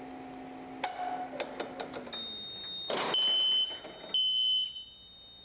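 A fire alarm pull station is pulled with a few clicks, and the addressable fire alarm system goes into alarm: a steady high beep starts, joined by two loud half-second alarm tones. At the same moment a ventilation fan's hum stops and winds down as the alarm shuts the ventilation off.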